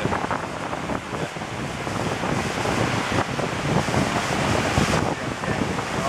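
Ocean surf breaking and washing up the shoreline, a steady rushing noise, with wind buffeting the microphone.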